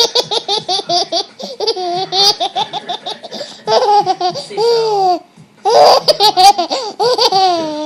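A baby laughing hard: a fast run of short laughs, then longer laughs that slide down in pitch. There is a brief pause just past the five-second mark, then another run of laughter.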